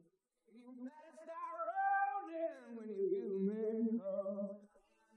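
A male voice singing long, drawn-out notes that slide up and then down in pitch, stopping shortly before the end.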